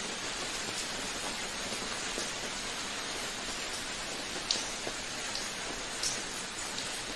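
Steady rain, a dense even patter with scattered individual drops, a few louder drop hits standing out past the middle.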